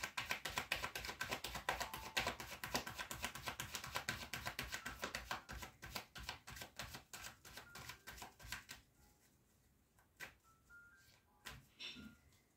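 A deck of tarot cards being shuffled: a fast run of light card clicks that thins out and stops about nine seconds in, followed by a few separate clicks.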